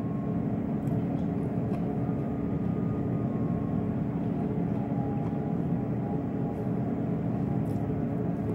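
Steady mechanical hum with a constant low tone running through it, unchanging throughout.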